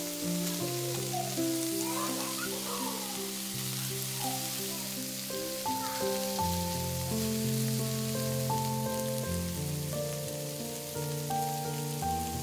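Sausages sizzling as they fry in a nonstick pan over medium heat: a steady hiss. Background music with held notes plays underneath.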